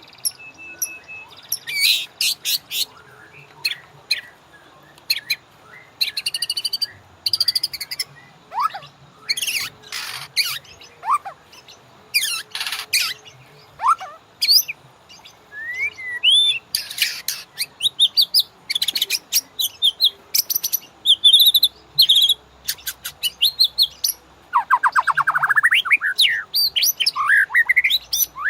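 White-rumped shama (murai batu) singing: a varied, fast-changing run of loud whistles, slurred notes and sharp chips, with a long rapid rattling trill near the end.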